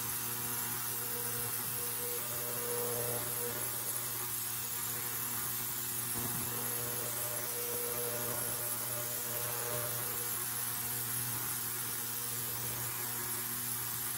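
Steady low hum under a constant hiss, with a faint higher tone that comes and goes; no distinct knocks or tool strikes.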